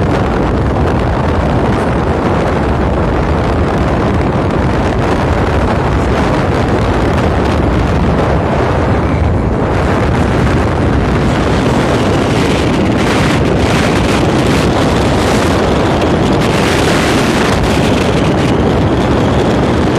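Wind buffeting the microphone on a ship's open deck, over a steady low rumble of the ship under way at sea. The gusts grow stronger and more uneven in the second half.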